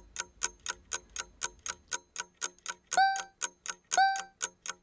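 Quiz countdown timer sound effect: a clock ticking about four times a second, with a short beep on each of the last counts, three beeps a second apart near the end.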